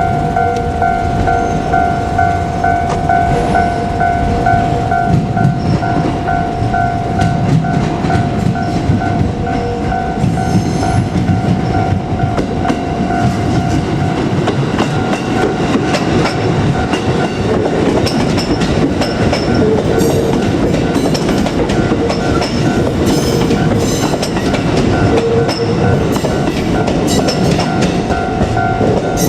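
Japanese level-crossing alarm ringing in a rapid, repeating pulse. Under it a JR Kyushu 787 series electric train passes with a steady rumble and wheel clatter on the rails.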